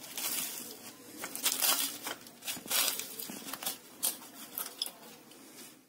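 Crisp, deep-fried momo wrappers crackling and crunching under fingers as they are handled, in a string of short crunchy bursts, the loudest about one and a half and three seconds in.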